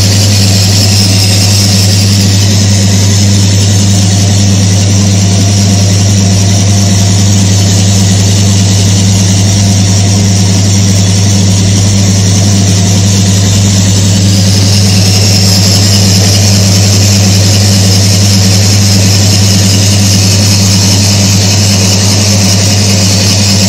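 Timken-style friction tester's electric motor running steadily, a loud, even low hum with a constant high hiss over it.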